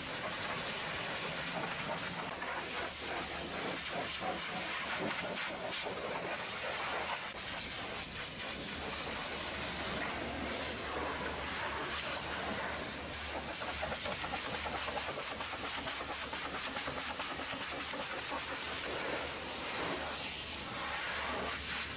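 Hot-water pressure washer jet spraying a semi truck's chassis, wheel arch and side panels: a steady hiss of water striking metal and plastic.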